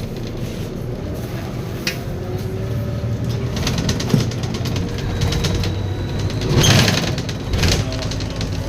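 Volvo B7RLE bus's diesel engine and ZF automatic gearbox running, with a faint high turbo whistle for a couple of seconds midway and a burst of rattling about seven seconds in.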